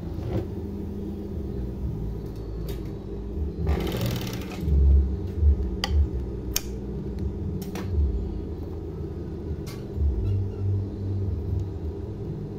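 Industrial overdeck (coverstitch) sewing machine, its motor humming steadily with short surges of stitching. A brief hiss comes about four seconds in, and a few sharp snips follow as scissors cut the binding tape at the presser foot.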